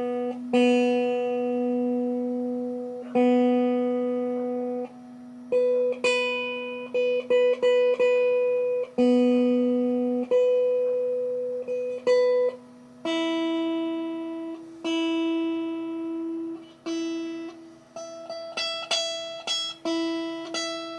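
Telecaster-style electric guitar, its two highest strings plucked one note at a time and left to ring. Each open string is compared with the same note an octave up at the twelfth fret to check intonation on the shared bridge saddle. The lower string is played first and the higher string from about halfway through.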